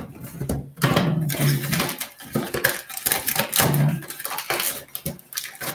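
Clear plastic packaging wrap crinkling and crackling as it is handled, a dense run of quick crackles that eases off near the end.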